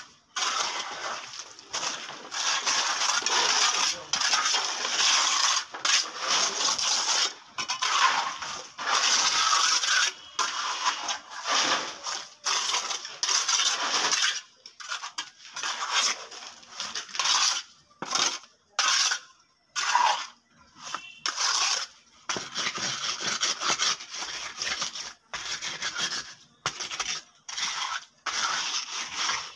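Steel mason's trowel scraping and spreading wet concrete across a slab top, in repeated strokes with short pauses between them.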